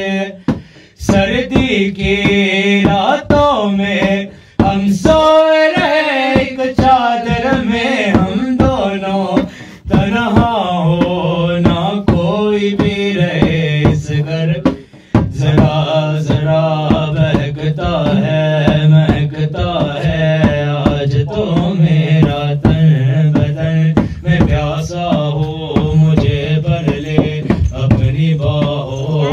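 A man singing a long, drawn-out melodic line into a microphone, accompanied by strokes on a dholak hand drum, with a few short breaths or pauses between phrases.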